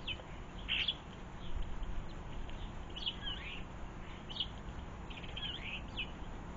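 Small garden birds calling in short, high chirps, one or two at a time every second or so, over a steady low background rumble.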